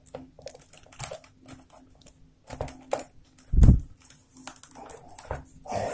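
Rolled newspaper tubes crackling and creaking as they are pressed and tucked into a woven paper basket border, a quick irregular run of small crackles, with one dull thump a little over halfway through. The tubes have partly dried out.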